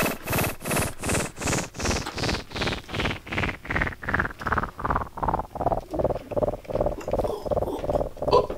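Pulsing electronic sci-fi sound effect, about two and a half even pulses a second, its tone sweeping steadily downward from high to mid pitch.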